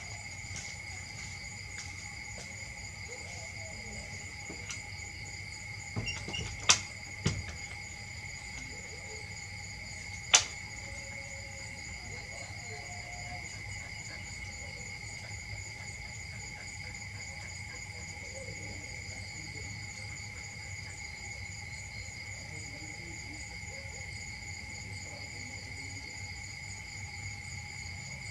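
Steady chorus of insects, several unbroken high buzzing tones layered together. Three sharp clicks stand out above it, two close together about a quarter of the way in and one a few seconds later.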